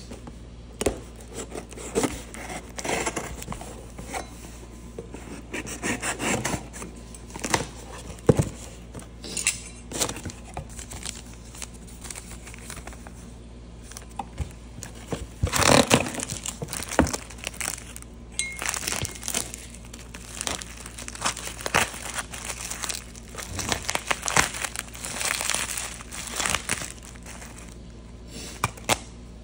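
Hands unpacking a cardboard shipping box: cardboard and paper rustling and scraping, and plastic bubble wrap crinkling, in irregular bursts with a few sharp knocks.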